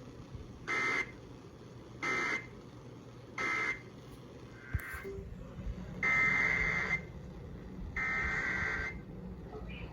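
Emergency Alert System SAME data bursts from a weather radio, a buzzy screech. Three short bursts about a second and a half apart mark the end of one flash flood warning, then two longer bursts of about a second each form the coded header of the next warning.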